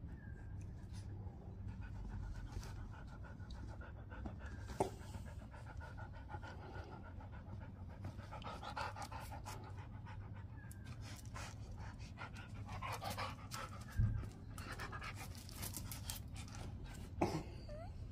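Dog panting steadily, with a couple of short knocks about five and fourteen seconds in.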